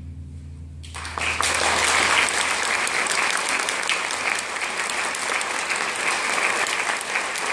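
The last low notes of a symphony orchestra's final chord dying away, then audience applause breaking out about a second in and going on steadily.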